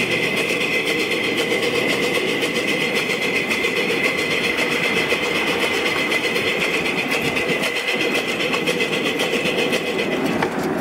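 Little Engines 2-6-0 live steam locomotive running steadily along the track, with a fast, even beat.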